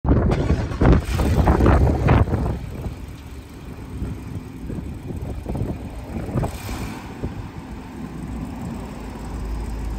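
Wind buffeting the microphone outdoors, an uneven low rumble with strong gusts in the first two seconds or so and a smaller gust past the middle.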